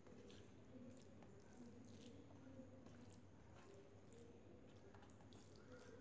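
Faint wet squishing of fingers mixing rice and daal on a steel plate, with scattered soft clicks over a low steady hum.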